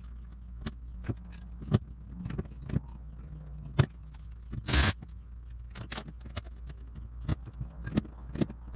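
Hand pop-rivet tool clicking as it is squeezed, setting a rivet that fastens a stainless steel pad eye to the kayak's plastic bow, amid scattered knocks and clicks of handling the parts. One louder brief rustle comes about halfway through.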